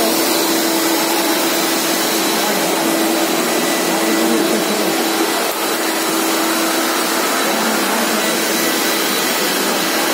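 Walk-behind auto scrubber dryer running, its suction motor and scrub brush giving a loud, steady rushing whine as it scrubs and dries a wet stone floor. A low hum underneath weakens about six seconds in.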